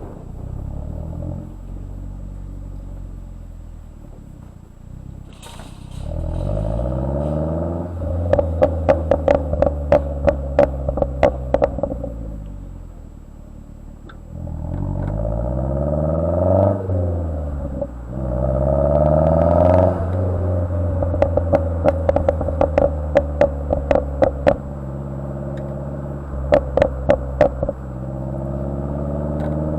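2010 Mazdaspeed3's turbocharged 2.3-litre four-cylinder, through a turbo-back exhaust, revving up and falling back several times. Each time it comes off the throttle there is a rapid string of exhaust pops and crackles, the overrun fuelling of a tune with pops and crackles enabled.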